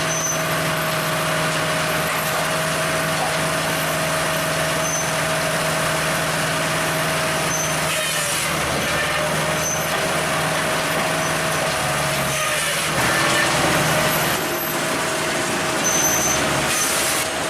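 A firewood processor running: a steady engine hum with machine and wood-handling noise over it, a little louder for a moment about two-thirds of the way through.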